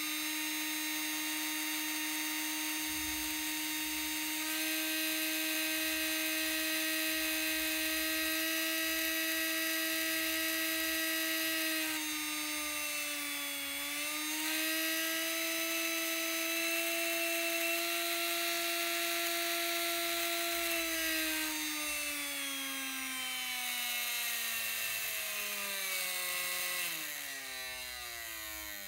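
Small brushed DC motor from an old drill, spinning a pair of neodymium magnets inside a washing-machine drain-pump coil, running with a steady whine. The pitch dips briefly about halfway through, then falls steadily over the last third as the supply voltage is turned down and the motor slows.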